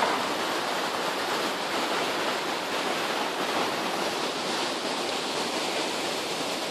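A mountain river rushing over boulders and a smooth rock chute, a steady even noise of running water.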